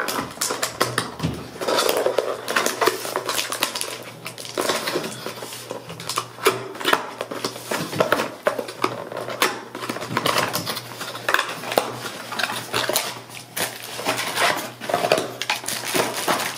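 Cardboard box being opened by hand: flaps and tucked tabs scraping, crackling and popping free in many quick irregular clicks, then packaging rustling as the contents are lifted out near the end.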